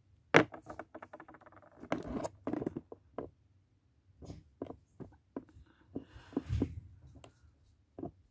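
Small handling noises from a tube of glue and a piece of cardboard worked by hand: a sharp click about half a second in, a quick run of fine ticks, then scattered taps and scratchy rustles.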